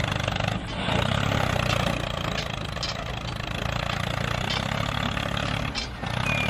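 Small engine running steadily with a low hum.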